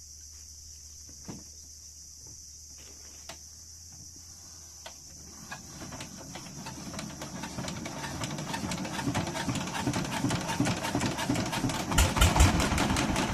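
Insects chirping steadily with a few soft clicks; from about five seconds in a small engine's rapid rattle fades in and grows steadily louder.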